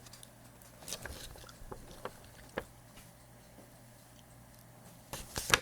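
A few faint, short clicks and taps from handling objects on a desk, with a louder cluster of sharp clicks about five seconds in.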